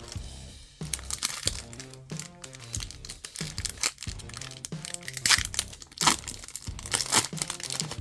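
Foil booster-pack wrapper crinkling and crackling as it is torn open and handled, in short bursts that are busiest in the second half, over background music with a steady beat.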